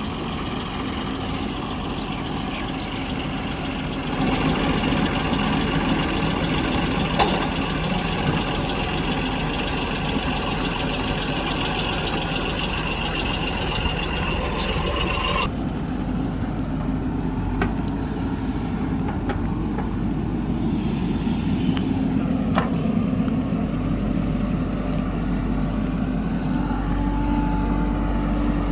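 Diesel engine of a JCB backhoe loader running steadily, louder from about four seconds in, with an abrupt change in its sound about halfway through and a few short clanks.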